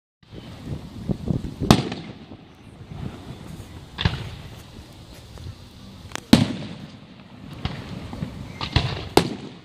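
Fireworks going off: sharp bangs about every two seconds, two in quick succession near the end, with smaller pops and crackle between them.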